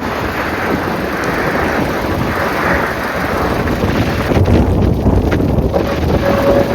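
Loud, steady roar of wind from a severe thunderstorm, with gusts buffeting the microphone. A deeper rumble builds about four seconds in, and a faint steady tone joins near the end.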